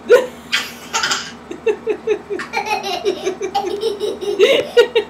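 A young child laughing: a long run of short, rapid belly laughs, several a second.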